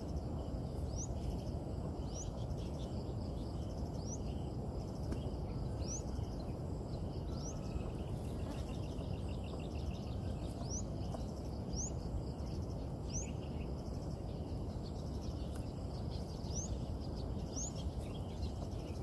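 A bird repeats a short, high, rising chirp about once every second or so, over a steady low outdoor background noise.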